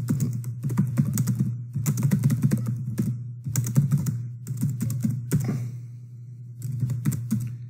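Typing on a computer keyboard in quick runs of keystrokes, with a brief pause about six seconds in, over a steady low hum.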